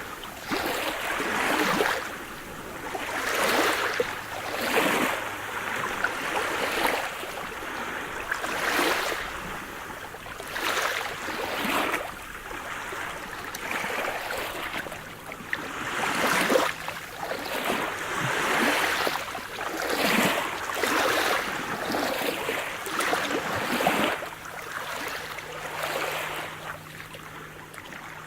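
Sea surf: small waves washing and splashing in quick succession, a surge of water every second or two.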